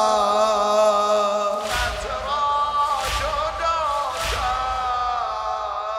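Male voice chanting a Shia latmiyah lament in long, drawn-out notes. Three heavy thumps from the mourners' chest-beating land about a second and a quarter apart in the middle.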